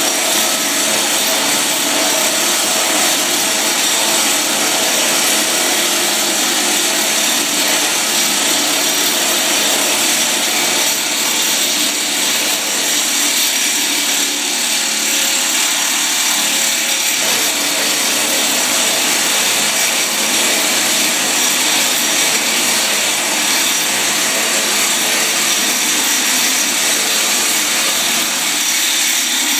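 A motor runs steadily, driving the blade-pitch mechanism of a 200 hp Kaplan turbine hub during a dry pitch test. It makes a continuous high whir with no breaks.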